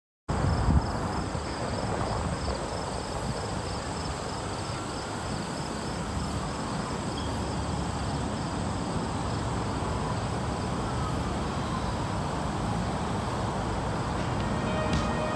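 Outdoor field ambience: a steady low rumble of wind and distant traffic, with insects trilling high up in a fast, even pulse. It cuts in suddenly just after the start.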